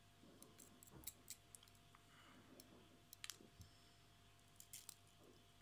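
Faint scattered clicks and light taps from ceramic tweezers pinching the red-hot coils of a rebuildable atomizer, done to even out hot spots. There are small clusters of clicks about a second in, around three seconds in and near the end.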